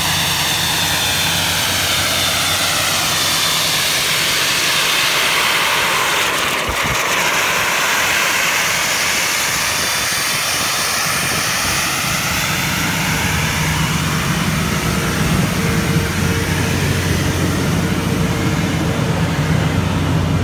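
Doosan NHP1500WCU diesel air compressor with its 600 hp Cummins engine running at a steady speed: a loud rushing roar over a low engine hum. The low hum grows stronger about two-thirds of the way through.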